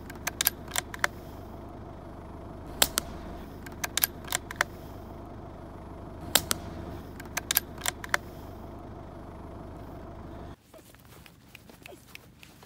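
Steady electrical hum from a night-vision rifle-scope camera's recording, broken by sharp clicks that come in quick clusters of two to five. About ten seconds in it cuts to a much quieter stretch of faint rustling in grass.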